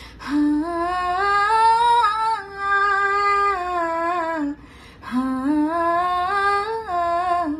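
A woman singing a slow melody alone, in two long phrases of held notes that climb and then fall, with a short breath between them about halfway through.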